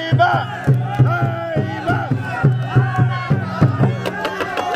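Large painted wooden barrel drum beaten with two sticks in a steady beat of about three strokes a second, driving the pull in a tug-of-war. A crowd shouts and cheers in time over it.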